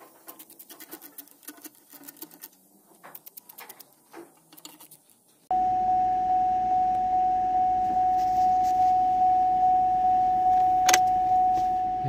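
Faint scattered clicks and taps of work under the car, then, after about five and a half seconds, an abrupt change to a 2008 Cadillac DTS's electronic warning chime sounding in the cabin, one steady tone that pulses about one and a half times a second, with a single sharp click near the end.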